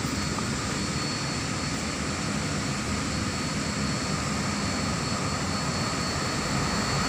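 Steady drone of street traffic and engines, with a faint high whine held throughout.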